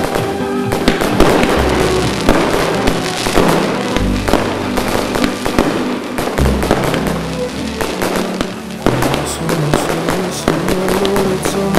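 Aerial fireworks bursting, many bangs in quick succession, over music with low bass notes.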